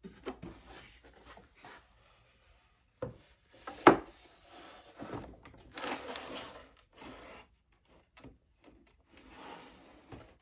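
A router and wooden table parts being handled and shifted into position: intermittent rubbing and scraping of wood, with a sharp knock about four seconds in and a smaller one just before it.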